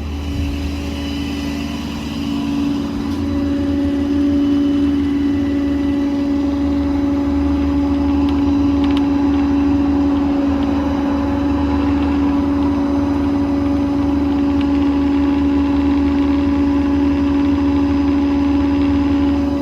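The truck's 6.7 Power Stroke diesel running steadily while driving the hydraulic system for the crane, with a steady whine over a low engine rumble. It gets louder about three seconds in and holds there.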